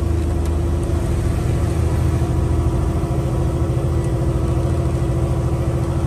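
Truck engine running steadily while driving, an even low engine sound with no change in pitch.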